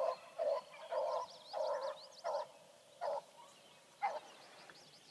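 Pack of beagles baying as they run, a string of short bays about two a second that stops about four seconds in, with songbirds chirping faintly above them.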